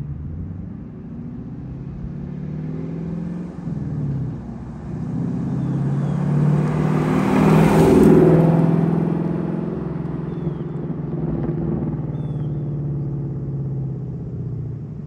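Ford Mustang Mach 1's 5.0-litre V8 with a Steeda H-pipe mid pipe, stock catalytic converters and the factory active exhaust in Normal mode, driving past. The exhaust note grows, is loudest as the car passes about eight seconds in, then fades as it pulls away.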